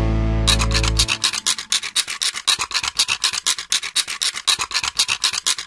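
Rapid, even scribbling strokes, a pen-on-paper scratching sound effect, about eight strokes a second, starting about half a second in. A held music chord fades out about a second in.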